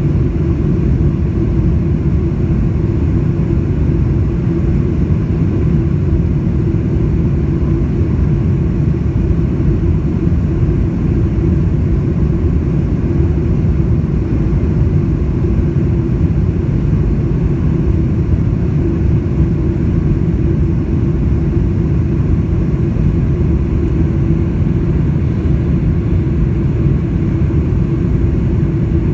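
Cabin noise aboard a Boeing 747-400 airliner: a steady low rumble from its four jet engines and the rushing air, with a constant hum over it.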